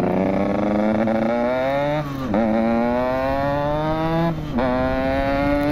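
Yamaha RX-King's single-cylinder two-stroke engine pulling hard under a rider, its pitch rising steadily, then dropping at two upshifts about two and a half and four and a half seconds in before climbing again.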